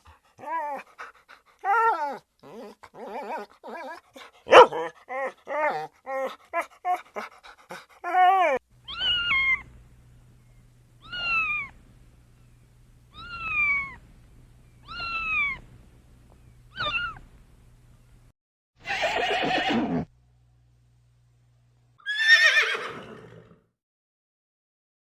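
A series of animal calls: a rapid string of short, high yelping calls, then five separate falling calls about two seconds apart, then two longer, rougher calls near the end.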